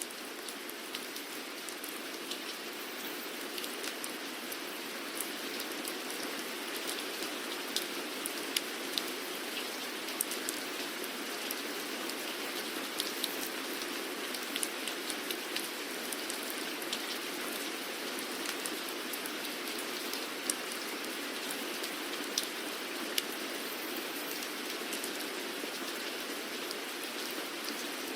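Steady rain falling on a hard surface, an even patter with the sharp ticks of individual drops scattered through it.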